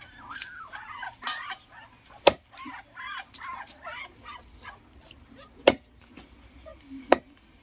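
Large knife chopping pieces of wild hen meat and bone on a wooden chopping block: three hard, sharp strikes a few seconds apart, the loudest sounds here. In the first half, birds call faintly in the background.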